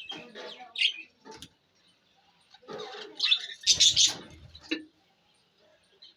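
Budgies chirping in two bursts: one at the start, and a busier one from about three to five seconds in.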